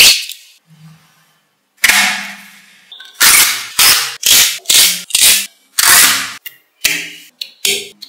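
Small metal magnetic balls snapping together: sharp clacks as slabs of balls are pressed into place on a magnetic-ball model. One clack at the start, one about two seconds in, then about a dozen more, roughly two a second, from about three seconds in.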